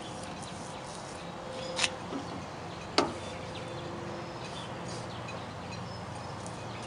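Two sharp knocks about a second apart, the second louder and briefly ringing, over a steady outdoor background hum: a paintbrush knocking against the rim of a metal paint can while being loaded with paint.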